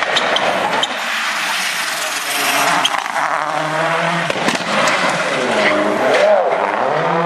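Rally car engine driven hard, revs climbing and dropping repeatedly through gear changes, with several sharp cracks over the noise of the tyres and gravel.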